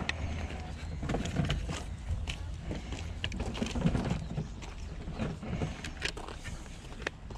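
Plastic game jewel cases being handled and opened, giving scattered light clicks and knocks over a steady low rumble.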